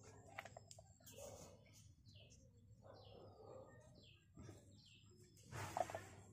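Faint bird chirping in the background: a string of short, falling chirps, about two a second, with a brief louder noise near the end.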